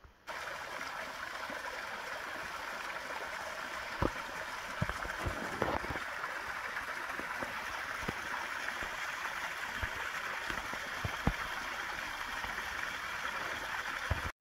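Small woodland stream cascading over rocks in a series of little falls: a steady rush of splashing water, with a few brief low bumps.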